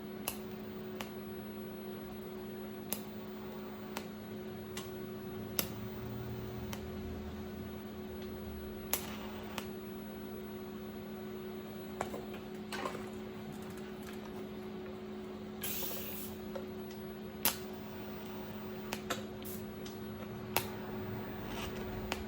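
Steady hum of welding equipment, with scattered light clicks and two short hisses, one about nine seconds in and one near sixteen seconds, while a square flange frame is welded.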